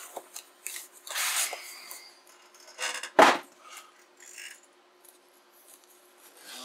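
Cardboard box and packing peanuts rustling and scraping as hands dig into the box, with one sharp knock about three seconds in.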